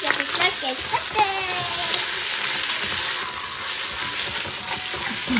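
Flat rice noodles sizzling in hot oil in the inner pot of an electric pressure cooker, stir-fried and tossed with a spatula that clicks and scrapes against the pot. The sizzle is a steady hiss.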